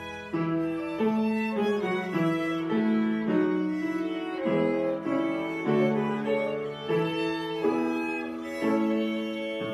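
Violin being bowed in a slow melody, moving to a new note about every half second to a second.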